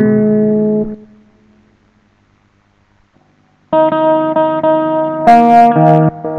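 Electric guitar played through a multi-effects floor pedal: sustained notes ring and die away about a second in, then after a quiet gap of over two seconds new notes come in sharply and change pitch a few times.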